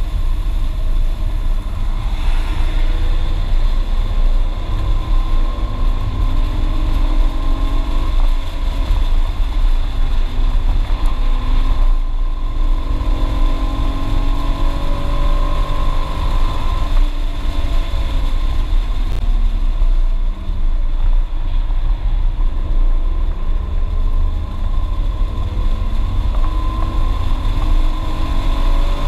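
BMW E36 328is straight-six engine heard from inside the cabin under hard track driving. Its pitch climbs and drops again several times as the car accelerates, shifts and slows for corners, over heavy road and wind rumble.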